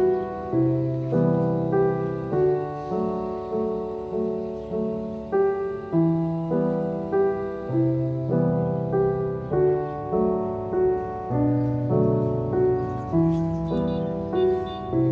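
Background solo piano music: a slow, steady melody of evenly paced notes over held low notes.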